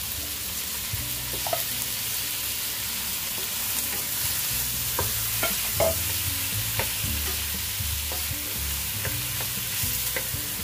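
Chicken pieces sizzling in hot oil in a nonstick wok, with a wooden spatula scraping and tapping against the pan as they are stirred; the short scrapes come several times, most in the middle.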